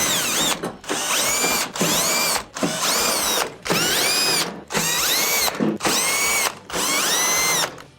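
Power drill backing out sheet-metal screws from the range's rear panel, run in about eight short bursts. Each burst's motor whine rises in pitch and falls again.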